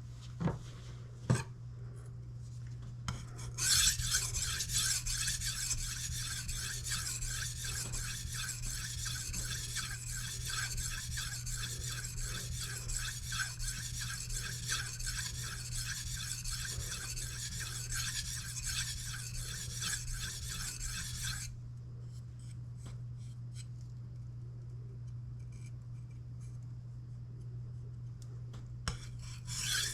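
Kitchen knife blade being stroked back and forth across a sharpening stone: a steady rhythm of rasping strokes that starts a few seconds in and stops about two-thirds of the way through, with faint ticks after and strokes picking up again at the very end. Two sharp clicks come just before the strokes begin, and a steady low hum runs underneath.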